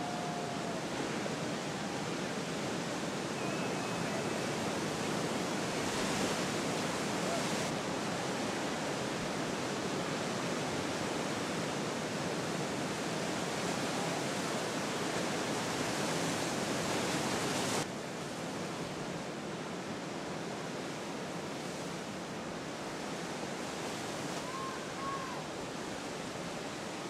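Steady rushing ocean ambience of breaking surf and wind, dropping suddenly to a lower level about eighteen seconds in.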